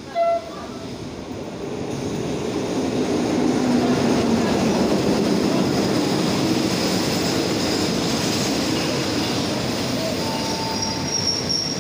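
Passenger train coaches rolling past along the platform, their wheels rumbling and clattering over the rails. The sound builds over the first couple of seconds and then holds steady. A high wheel squeal comes in near the end, and a brief loud tone sounds right at the start.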